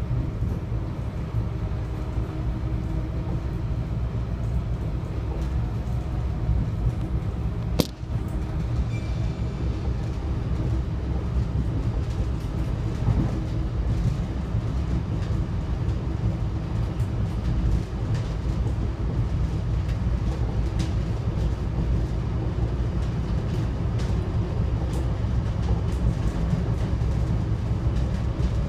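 Diesel passenger railcar running between stations, heard from inside: a steady low rumble of engine and wheels on rail, with a held drone of whining tones over it. A single sharp clack comes about eight seconds in, and lighter ticks follow later.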